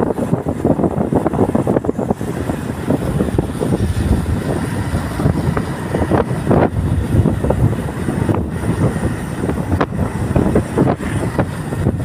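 Wind buffeting the microphone on a moving motorcycle, a continuous rushing flutter over the bike's engine and road noise.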